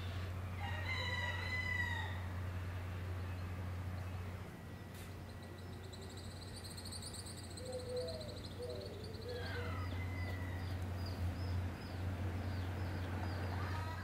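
A rooster crows once about a second in, a long call that drops at its end. Fainter bird calls follow later, over a steady low hum.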